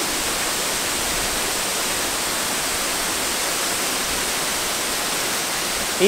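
Steady, even rush of a strong waterfall pouring down a rock face into its plunge pool.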